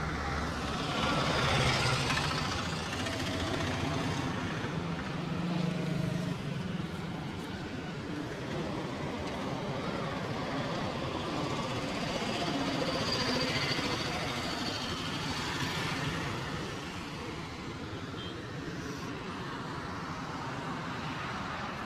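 Street background noise: a steady rumble and hiss of passing traffic.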